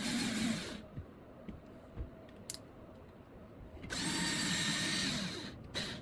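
Power screw gun driving screws in two runs, one ending just under a second in and another of about a second and a half near the end, with small clicks between.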